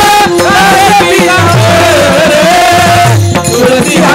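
Devotional kirtan music: brass taal hand cymbals clashing in a steady rhythm with pakhawaj drum strokes whose bass slides down in pitch, under a held, wavering sung melody. The music thins out briefly about three seconds in.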